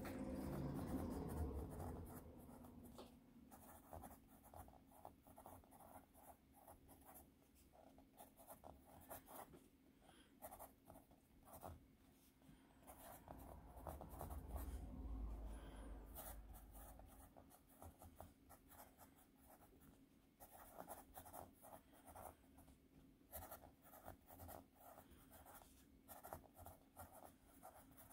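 Reliance Ravenwood 1080 No. 2 wood-cased pencil writing on graph paper: a faint, irregular run of short scratches as letters are printed. A low rumble comes in the first couple of seconds and again about halfway through.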